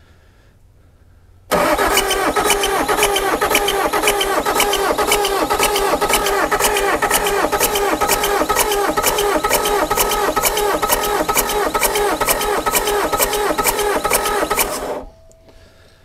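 Bobcat S590's Doosan D24 four-cylinder diesel being cranked by its starter through a bump-start switch, with the glow plugs out and the injectors not firing, so it turns over without starting. It starts about a second and a half in, runs as an even rhythm of compression pulses and stops suddenly near the end. This is a compression test: the gauge on cylinder one builds to about 420 PSI, a healthy reading.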